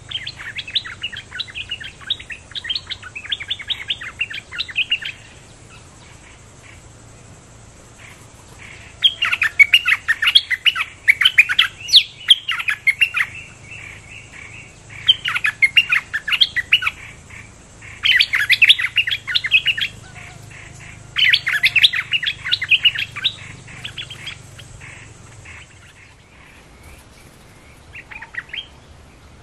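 Bulbuls singing in about six bursts of quick chattering notes, each a few seconds long, with pauses between them. The bursts come from a caged decoy bird calling to lure wild bulbuls of its kind, and possibly also from wild birds answering it.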